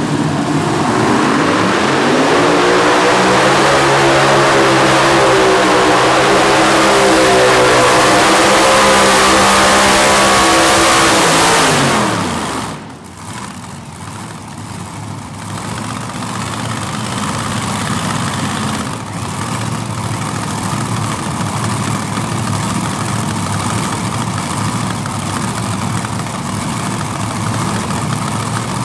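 Unlimited-class pulling tractor's engines winding up and running flat out under load, their pitch climbing in the first two seconds and holding high with some wavering. About twelve seconds in the pitch falls and the sound drops away sharply as the throttle comes off, leaving a quieter, steady engine running.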